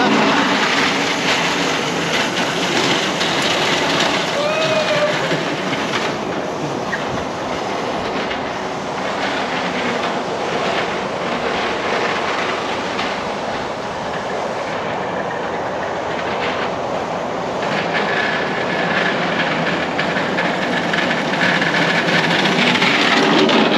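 Razor Crazy Cart XL with an upgraded 1000 W electric motor being driven hard and drifted on rough asphalt: a steady, loud rolling rattle of its hard wheels and casters on the pavement. A thin, steady whine joins in for the last few seconds.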